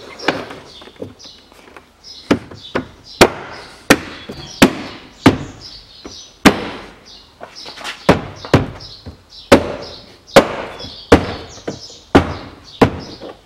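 A hand knocking a Range Rover Evoque's rear door trim panel against the door, snapping its plastic retaining clips home. A series of sharp knocks, roughly one or two a second.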